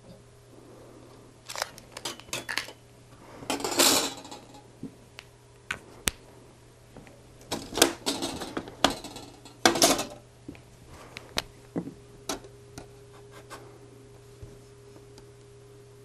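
A thin 0.3 mm stainless steel sheet with a protective film, and a steel ruler, handled and laid on a tabletop: scattered clicks, taps and short bursts of rustling, the loudest about four, eight and ten seconds in.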